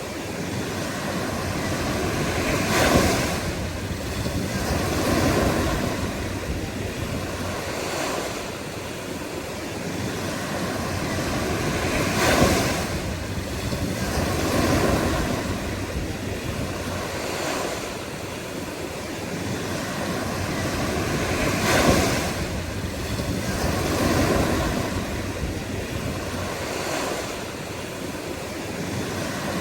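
Ocean surf: waves breaking and washing in continuously, swelling and ebbing, with the biggest crashes about every nine to ten seconds and smaller waves in between.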